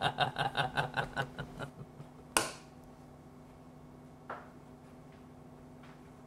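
A man's laugh, a rhythmic ha-ha-ha that fades out within the first two seconds. It is followed by a single sharp knock with a short ring about two and a half seconds in, and a fainter knock near four seconds, over a steady low room hum.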